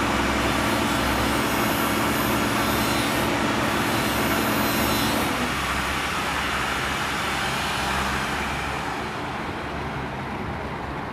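Machinery running steadily, a mechanical hum with a low pitched drone that drops away about five seconds in; the noise eases slightly near the end.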